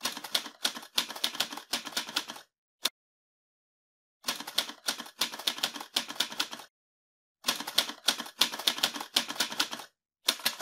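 Typewriter sound effect: quick key strikes in three runs of about two and a half seconds each, with a single stroke after the first run and another near the end.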